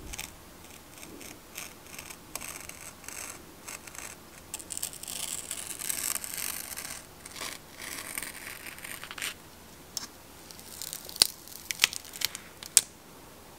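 Utility knife blade scoring through a strip of printed masking tape and its backing on a cutting mat, a scratchy, uneven scraping. Near the end come a few sharp clicks and crackles as the cut piece is peeled off its backing.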